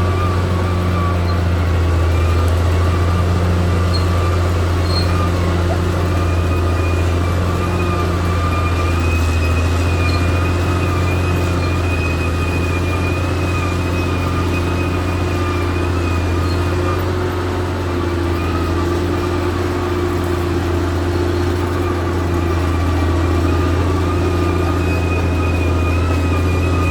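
Caterpillar D6R XL bulldozer's diesel engine running steadily, a deep continuous drone with a wavering high whine over it.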